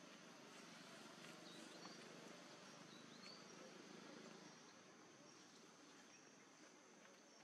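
Faint outdoor ambience: a steady high-pitched insect drone, with a few short rising bird chirps in the first half.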